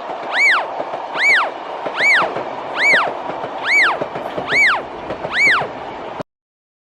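Cartoon railroad crossing warning signal sounding a repeated rising-and-falling tone instead of the usual clanging bell, seven times at a little over one per second, over a steady rushing noise. Both cut off suddenly about six seconds in.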